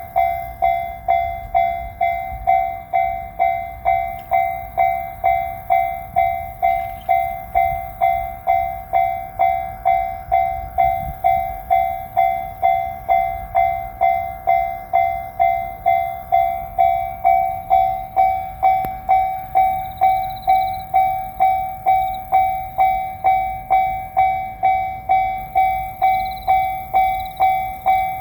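Japanese level-crossing warning bell ringing at a steady pace of about two dings a second, each ding fading quickly.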